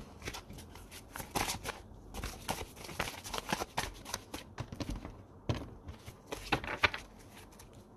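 Tarot cards being handled and shuffled: an irregular run of soft clicks, snaps and rustles.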